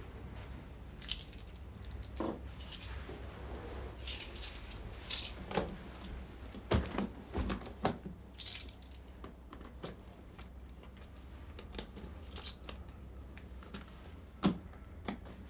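A bunch of keys jangling in several short bursts, with scattered clicks and knocks as a briefcase is unlocked and searched, over a low steady hum.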